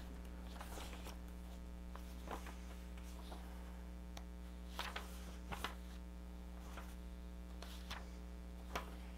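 Steady electrical mains hum, with a few faint short ticks and rustles scattered through it.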